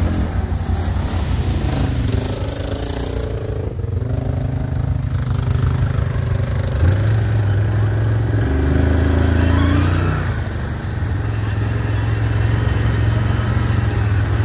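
ATV engine running as it wades through floodwater, a low steady hum whose pitch steps up and down a few times in the middle.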